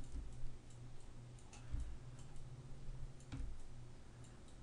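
Faint, irregular computer mouse and keyboard clicks over a steady low hum.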